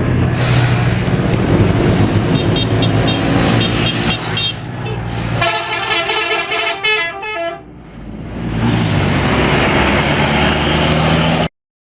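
Bus 'telolet' musical horn, a multi-tone air horn, playing quick runs of notes over a running engine: faintly about two seconds in and loudly from about five and a half to nearly eight seconds. The sound cuts off suddenly just before the end.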